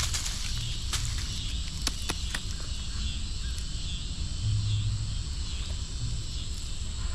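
Insects calling steadily in a high, even drone, with a few sharp clicks in the first couple of seconds and some low rumbles, the strongest about halfway through.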